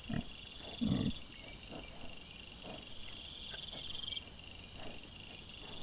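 Wild boar foraging with their striped piglets, giving short low grunts several times, the loudest about a second in, over a steady trilling of crickets or other night insects.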